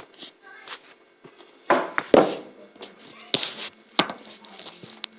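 A few sharp clicks and knocks of kitchen containers being handled, such as an ice cream tub.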